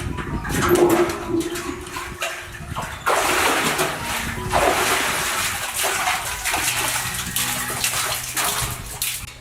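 Water splashing and sloshing in irregular bursts, becoming a louder, steady rush about three seconds in.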